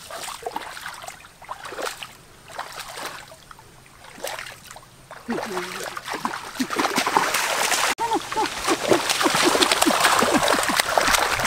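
Water splashing: scattered splashes at first, then continuous, vigorous splashing and churning from about six seconds in.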